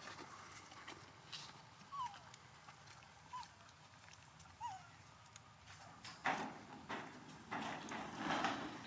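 An animal gives three short, high calls about a second apart, each rising then falling in pitch. Bursts of rustling follow near the end.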